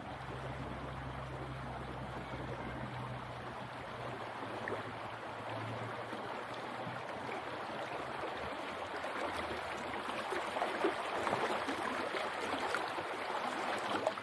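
Shallow river water rushing over stones at a rocky riffle, a steady sound that grows a little louder toward the end.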